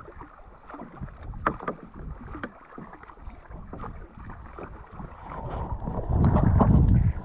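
Wooden paddles splashing and knocking as the crew paddles a small outrigger canoe. About six seconds in, a much louder, low rushing of water takes over.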